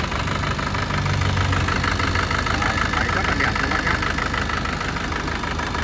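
Isuzu Hi-Lander's 2.5-litre turbodiesel engine idling steadily, heard up close with the bonnet open.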